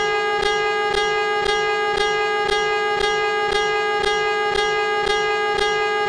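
Emergency alert alarm tone: one steady, buzzy, unchanging pitch with a regular pulse about twice a second.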